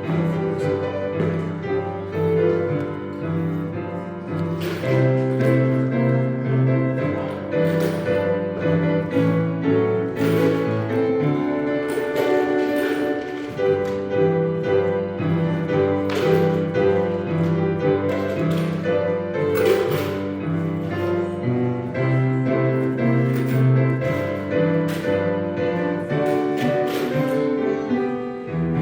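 Instrumental piano music playing steadily, with chords and notes struck and held.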